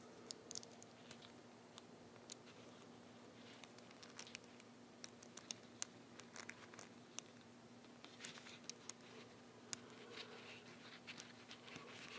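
Small metal parts of a Singer 15-91 bobbin winder assembly, a screw, spring and steel pieces, clicking and clinking lightly as they are handled and fitted together by hand. The clicks are scattered and irregular, over a faint steady hum.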